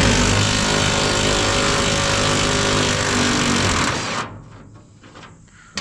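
A power tool runs steadily for about four seconds with a constant pitch, then winds down and stops.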